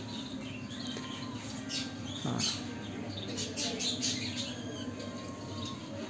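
Small caged birds chirping and twittering, many short high calls scattered and overlapping, over a steady low hum.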